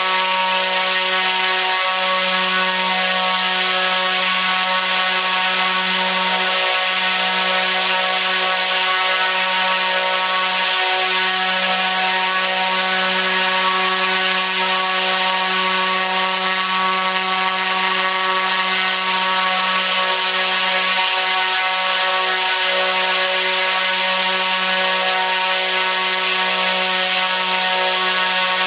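T-Motor U13 100kV brushless motor turning a 29-inch three-blade carbon propeller at full throttle: a loud, steady drone with many overtones, holding its pitch throughout.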